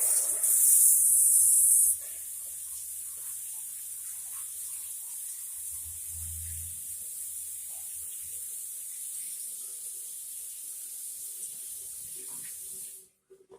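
Water spraying with a steady high hiss, loud for about the first two seconds, then softer, and cutting off suddenly near the end.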